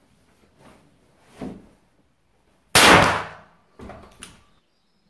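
One shot from a Ruger Super Redhawk .44 Magnum revolver with a 7.5-inch barrel, about three seconds in, the loud bang dying away over about a second. Two fainter sharp clicks follow about a second later.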